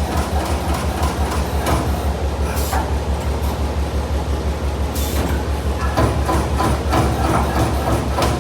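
CNC turret punch press running, its ram striking sheet metal in a rapid, rhythmic train of punches over a steady low machine hum. The strikes grow sharper and louder from about five seconds in.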